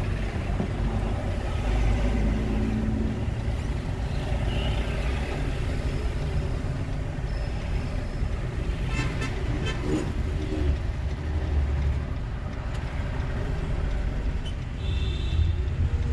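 Cabin noise of a Suzuki car moving slowly in traffic: steady engine and road rumble, with a brief horn toot from the traffic near the end.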